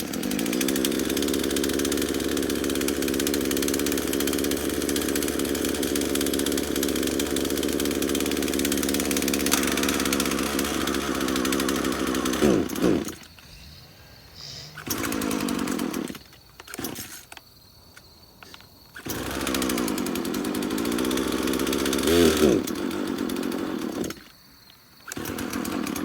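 Long-stored Craftsman two-stroke chainsaw engine catching and running steadily for about twelve seconds, then slowing and dying. It fires again in short bursts, runs for a few seconds more, slows and stalls, then fires briefly once more near the end. It only keeps running with the choke on.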